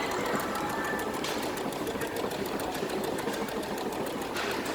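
Brother NV180 computerized sewing and embroidery machine running steadily, its needle stitching with a rapid, even ticking.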